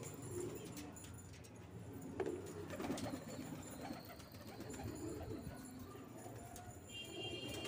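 Domestic pigeons cooing softly, low murmuring coos repeated at intervals.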